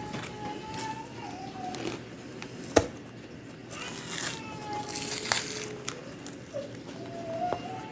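A young boy crying in the background in long drawn-out wails, over the rustle of cardboard packaging being handled, with one sharp click a little under three seconds in.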